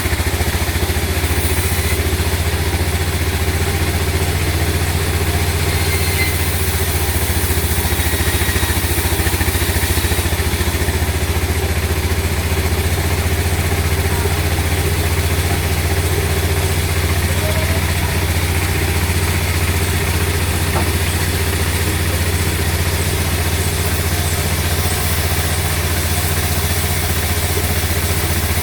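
Engine running steadily at an even speed, a constant low hum with no change in pitch, typical of sawmill machinery left running.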